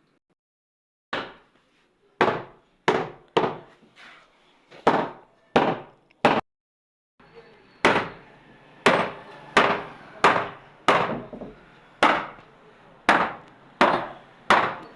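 Repeated hammer blows on wood: about sixteen sharp, ringing strikes, spaced half a second to a second and a half apart. There is a brief silent break about six seconds in, after which a faint steady background hum sits under the blows.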